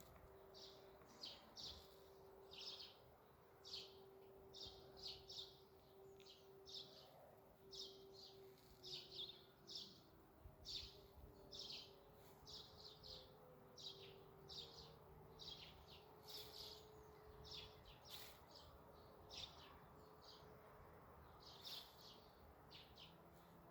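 Faint birds chirping in short, repeated high calls, over a faint steady tone from a distant civil-defence siren whose pitch slowly falls about halfway through.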